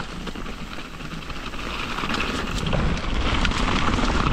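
Mountain bike rolling fast down a wet dirt trail: tyre noise and rattling over leaves and gravel, with wind buffeting the microphone, building louder toward the end.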